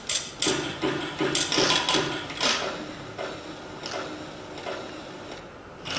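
Machine sound effect from an animated film of the Memex desk, played over lecture-hall loudspeakers: clicking and clunking about three times a second, easing off about halfway through.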